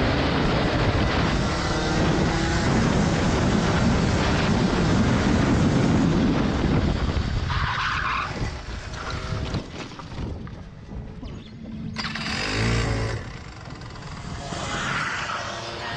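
Rotax Max Senior 125 single-cylinder two-stroke kart engine running loud at speed, then falling away about seven seconds in as the kart skids round and slows almost to a stop. A short engine blip comes near the end.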